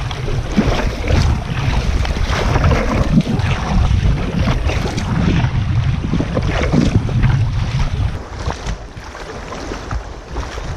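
River water rushing and splashing around an inflatable canoe running through a riffle, with wind buffeting the microphone. It eases off about eight seconds in.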